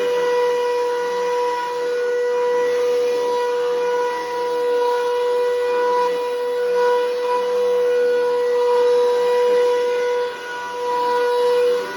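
Bissell Powerforce Helix Turbo 68C71 upright vacuum running with a very loud, steady high whine, dipping briefly about ten seconds in. The owner means to take it apart and clean the fan and motor to cure the noise.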